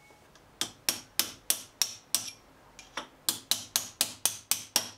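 A small hammer tapping a roll pin into the milling machine's captive drawbar: about fifteen sharp metallic taps. First comes a run of six about three a second, then a short pause and a quicker run of nine.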